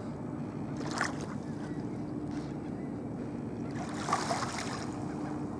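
Calm lakeshore ambience: a low, steady wash of light wind and gently lapping water, with a faint steady hum and two brief soft sounds, one about a second in and one near four seconds.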